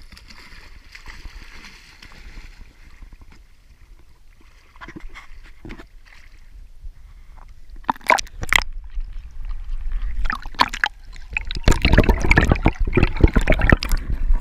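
Water splashing and sloshing right against an action camera held at the waterline: quiet lapping at first, two sharp splashes about eight seconds in, then heavier, continuous sloshing and gurgling near the end as the camera goes under the surface among bubbles.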